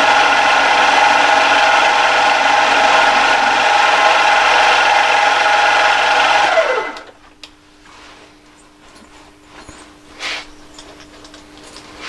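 The Emco Maximat V10-P's milling spindle runs with a steady whine as an end mill cuts a metal block. About six and a half seconds in, the spindle is switched off and winds down with a falling whine, leaving a faint low hum and a few light clicks.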